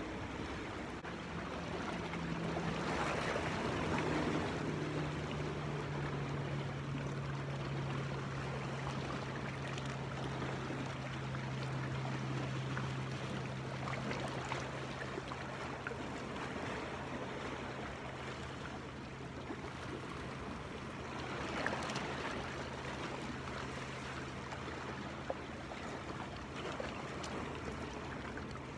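Sea waves washing against a rocky shoreline, swelling about three seconds in and again near twenty-two seconds. A steady low hum runs underneath from about a second in.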